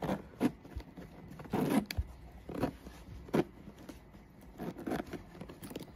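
Zipper on a crocheted bag being worked back and forth in short rasps, eight or nine brief scraping strokes at uneven intervals.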